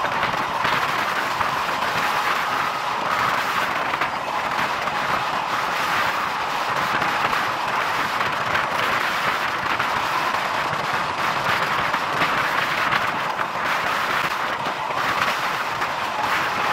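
Bangladesh Railway commuter train running at speed along the concrete slab track of an elevated viaduct, heard from beside the coaches: a steady noise of wheels on rails with wind rushing past the microphone.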